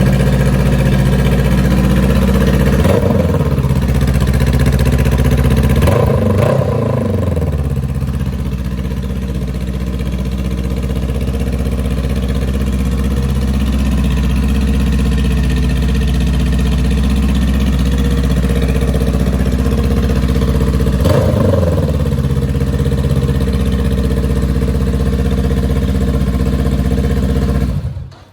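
2020 Honda CBR500R's parallel-twin engine running through an aftermarket shorty exhaust pipe with no dB killer, idling loud with three quick throttle blips, two in the first several seconds and one past the twenty-second mark. It cuts off near the end.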